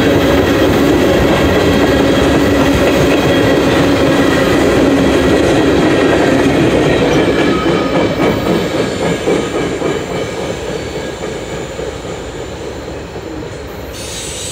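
Freight train cars rolling past, a loud rumble and clatter of steel wheels on rail that fades after about eight seconds as the end of the train goes by. A high squeal comes in near the end.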